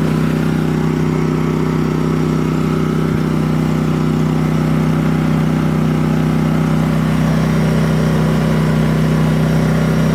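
Firman WH03242 inverter generator's engine running steadily on propane, an even hum of engine tones that holds through.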